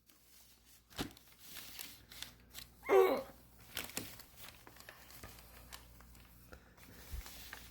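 A cat scuffling with a toy doll: quiet rustling and scraping, with a sharp knock about a second in. About three seconds in there is a brief voiced 'oh'-like exclamation.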